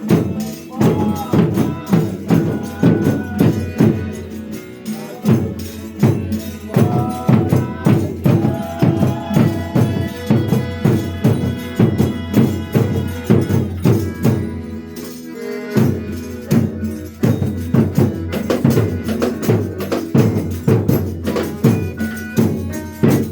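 Folia de Reis folk music: pitched instruments playing over a steady, fast tambourine beat. The music stops abruptly at the end.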